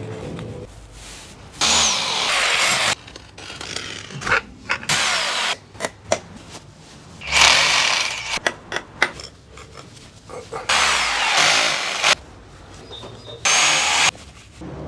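Power drill running in about six short bursts of a second or so each, with clicks and handling knocks between bursts, as holes are drilled or screws driven to fit a Ring doorbell.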